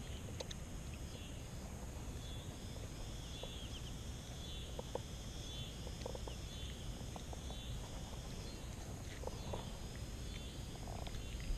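Quiet outdoor ambience: a steady low rumble with a short high chirp repeating about once a second, with a few faint clicks in between.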